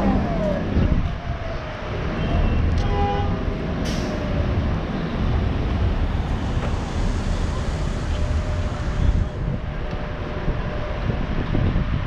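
Street traffic: a city bus's engine note falling in pitch as it pulls away in the first second, then a steady rumble of passing cars with tyre hiss.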